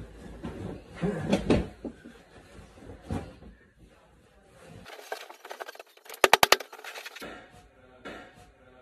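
Bedding rustling and bumping as a duvet and sheets are shaken out and straightened on a bed. About six seconds in comes a quick run of five or six sharp, loud clicks, the loudest sound here.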